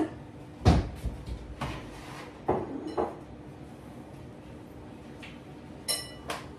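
Kitchen clatter: a cupboard door and dishes being handled, with several knocks in the first three seconds, the loudest a dull thud, and a short ringing clink of crockery or glass near the end.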